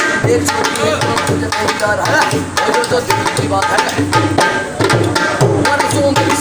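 Two-headed, rope-tensioned dholak drum played with both hands in a fast, steady rhythm, deep bass-head thuds under sharper strokes on the treble head.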